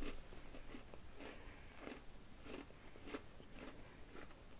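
Close-up chewing of a crunchy pumpkin spice fudge stripe cookie: faint, regular crunches, a little under two a second.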